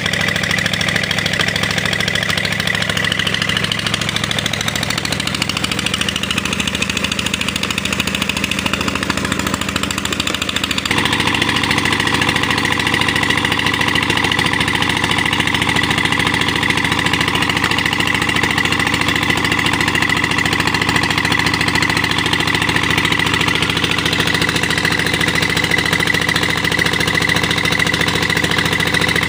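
Chief diesel engine running steadily as it drives a tube-well pump, with water gushing from the outlet pipe into the tank. The sound shifts abruptly about eleven seconds in and runs a little louder after.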